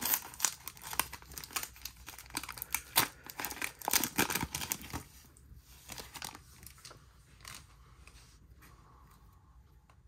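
Trading-card pack wrapper being torn open and crinkled by hand: a dense run of crackling for about the first five seconds, then only a few soft rustles as the cards come out.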